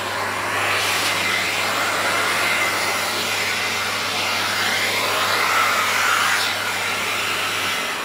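Philips PowerPro Compact 1900 W bagless canister vacuum cleaner running at maximum suction, a steady loud rush of air and motor whose tone rises and falls as the narrow nozzle on the hose is moved about. Just before the end the motor is switched off and begins to wind down.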